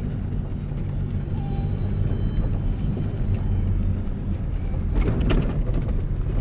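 Toyota vehicle's engine running with a steady low drone, heard from inside the cabin on a rough dirt track. About five seconds in there is a cluster of knocks and rattles.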